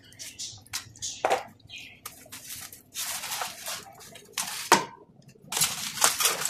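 A foil-lined metal roasting tray being handled and slid into an oven: aluminium foil crinkling and rustling in bursts, with a few sharp metal knocks and clinks.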